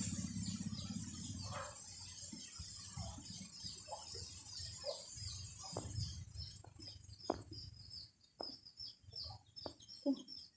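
Backyard chickens clucking now and then while small birds chirp in quick, repeated falling notes. A low rumble fades out in the first couple of seconds.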